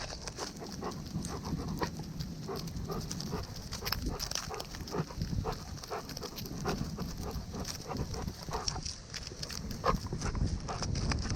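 A dog on the move, heard from a camera strapped to its body: irregular clicks, taps and rustling from its footfalls and harness over a steady low rumble of motion against the microphone.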